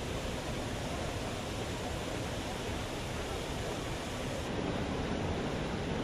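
Steady rushing of floodwater: an even, unbroken water noise.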